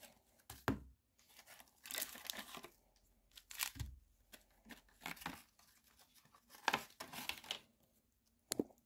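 Cardboard-and-plastic blister packaging of a Pokémon card product being torn and crinkled open by hand, in several short bursts of tearing.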